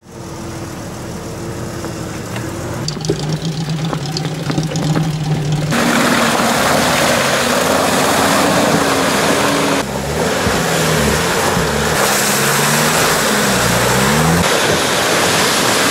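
Off-road 4x4 engines, a Nissan Patrol and a Toyota Land Cruiser 70 among them, revving up and down while driving through deep mud, over a loud rushing noise. The sound changes abruptly several times.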